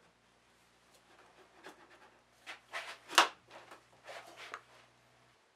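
Wooden tenon being pushed and worked into a hand-chiselled mortise for a trial fit: a few short wood-on-wood scrapes and knocks, the loudest a sharp knock about three seconds in.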